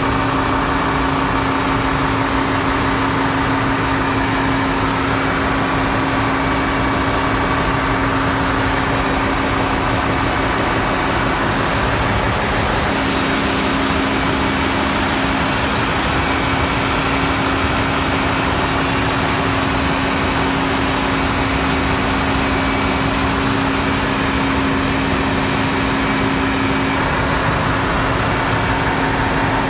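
Steady, loud drone of a ship's engine room: running diesel machinery with a constant low hum.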